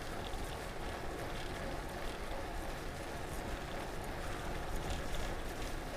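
Steady wind and rolling noise from a bicycle being ridden, with low wind rumble on the microphone.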